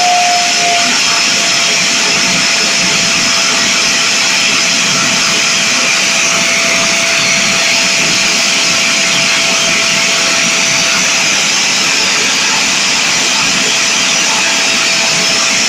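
Homemade model gas turbine jet engine, with a four-stage axial compressor and a single-stage turbine, running steadily: a loud rushing hiss with a thin steady whine over it. The whine dips slightly in pitch about a second in.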